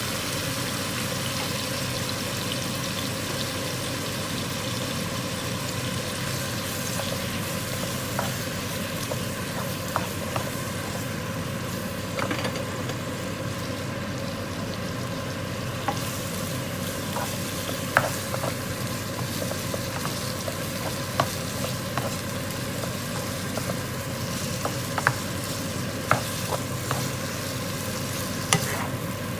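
Nam prik ong, a northern Thai chili dip of minced pork and tomato, sizzling steadily in a pan as it is stirred. Occasional sharp clicks of the spatula against the pan come more often in the second half.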